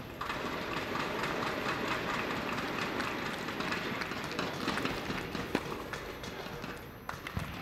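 Audience applauding in a large indoor tennis arena, starting suddenly and dying away about seven seconds in.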